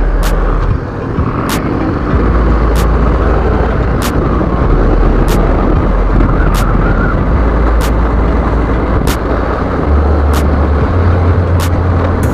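Riding a motorcycle along a street: wind rushing over the camera microphone, with road and engine noise underneath. A faint sharp tick repeats about every second and a quarter.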